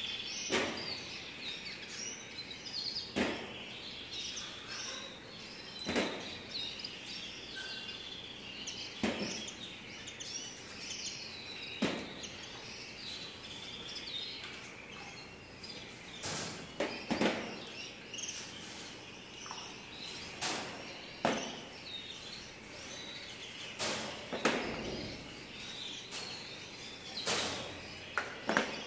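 Canaries chirping and twittering throughout. Every few seconds a short, sharp burst of noise cuts through, about a dozen in all, some in quick pairs.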